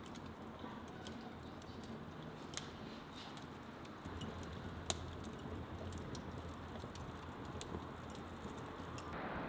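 Wood fire crackling, with scattered sharp snaps and pops over a low steady rush of burning; the loudest pop comes about five seconds in.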